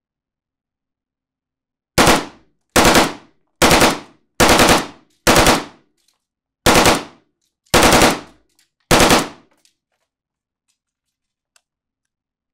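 Hungarian AK-55 rifle in 7.62×39mm fired in eight short bursts of rapid shots, starting about two seconds in and ending near nine and a half seconds. Each burst trails off in the echo of a small indoor range.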